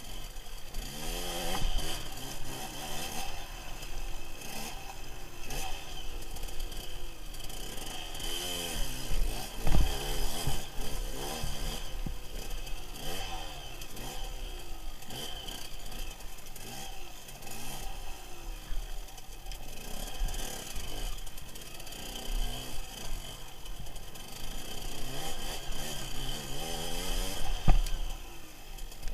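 KTM off-road motorcycle engine revving up and down again and again as the bike is ridden over rough, gravelly ground. Two sharp knocks stand out, one about ten seconds in and one near the end.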